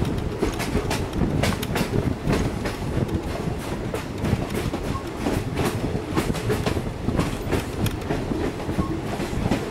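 Railroad car rolling along the track, a steady rumble with repeated clicks of the wheels over the rail joints, heard from an open platform of the car.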